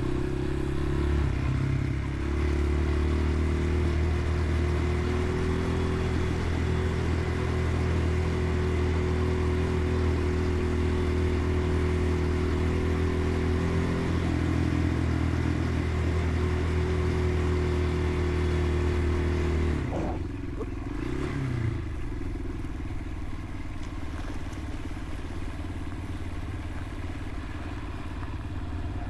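Dirt bike engine running at a steady pace while riding a trail. About twenty seconds in it drops back with a short dip in pitch and runs on lower and quieter.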